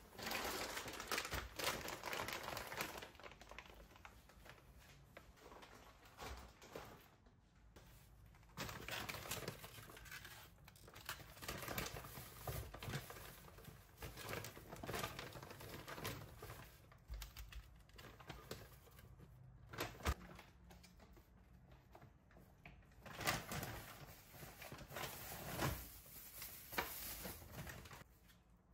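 Plastic shopping bag and produce packaging rustling and crinkling in irregular bursts as groceries are unpacked onto a stone countertop, with a few light knocks as items are set down.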